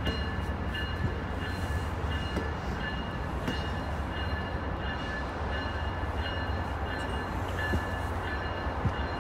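Amtrak stainless-steel passenger cars rolling slowly past: a steady low rumble with scattered wheel clicks, over a faint steady high-pitched ringing.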